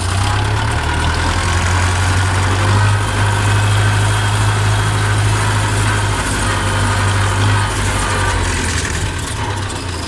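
Steyr 650 Plus tractor's four-cylinder four-stroke diesel engine running with a steady low drone, easing off a little about three-quarters of the way through.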